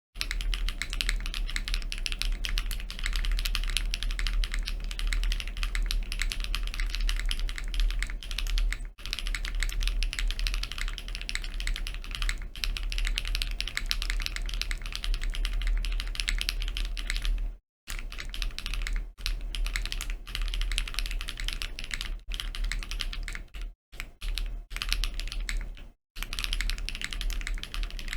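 Fast, continuous typing on a Rule60 V3 mechanical keyboard with HMX Xinhai switches and DMK Hush keycaps, the keystrokes running together, broken by a few brief pauses. A steady low hum runs underneath.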